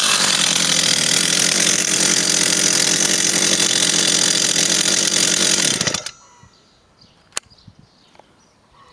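Stihl 036 two-stroke chainsaw running steadily at high revs, then switched off: the engine cuts out abruptly about six seconds in. A single sharp click follows a little over a second later.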